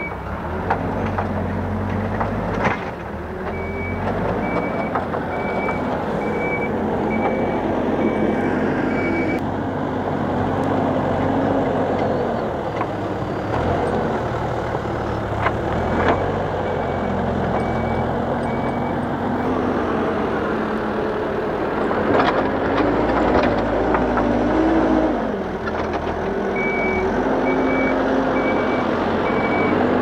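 Hidromek 102B backhoe loader's diesel engine running and revving as it works, with its reversing alarm beeping about once a second in three spells. A few knocks are heard over the engine.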